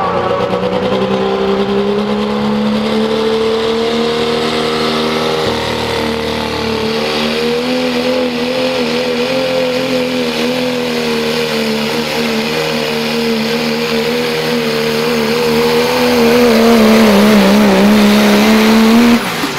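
Pro stock diesel 4x4 pickup engine at full throttle under load, pulling a weight sled and held at steady high revs. It grows louder near the end and its pitch wavers just before it cuts off.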